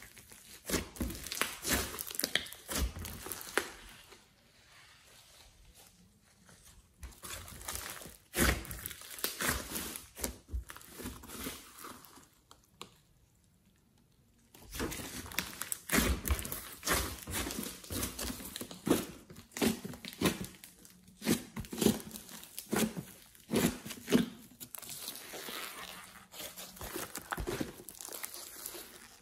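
Hands squeezing and stretching a large lump of glossy slime mixed with clay and glitter: irregular sticky crackles, pops and squelches, with two quiet pauses, one about four seconds in and another around twelve seconds in.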